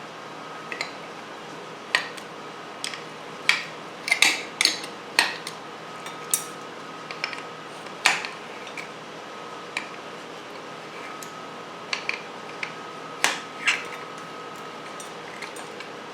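Metal hand tools clinking and clattering on a workbench as they are picked up, sorted and set down: a dozen or more sharp metallic clinks at irregular intervals, over a faint steady hum.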